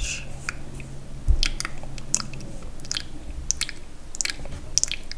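Wet, sticky mouth sounds close to the microphone: irregular smacks and clicks, with one low bump about a second in.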